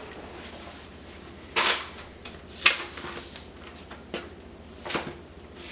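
Pages of a spiral-bound cookbook being flipped by hand: a papery rustle, then a few crisp single page flicks spaced about a second apart.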